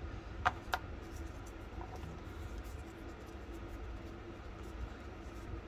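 Two light clicks about a quarter second apart, about half a second in, then a fainter one, as the steel revolver barrel with its new front sight is handled and test-fitted. A faint steady low hum runs underneath.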